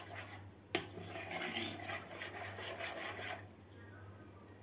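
A metal spoon stirring a thin yeast-and-water mixture in a plastic bowl, scraping against the bowl in a run of rhythmic strokes, with one sharp tap of the spoon on the bowl just under a second in. The stirring stops about three and a half seconds in.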